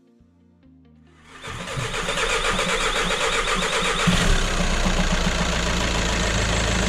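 A Volkswagen 2.0 TDI CFFB four-cylinder common-rail diesel starting for the first time after its fuel injectors were replaced. The starter cranks about a second and a half in, the engine catches around four seconds in with a brief rise in speed, then settles to a steady idle.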